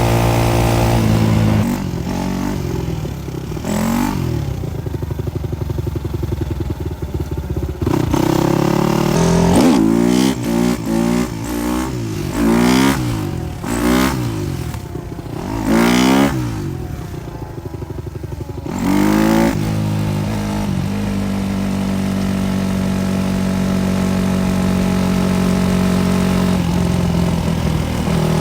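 Supermoto motorcycle engine running and being revved: a steady run, then a series of quick throttle blips rising and falling in pitch, then steadier running that slowly climbs in pitch.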